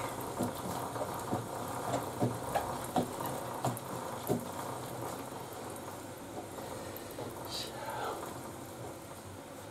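Motorcycle drive chain being turned by hand with the rear wheel: a run of irregular clicks and light knocks through the first four seconds or so, then a steadier faint hiss.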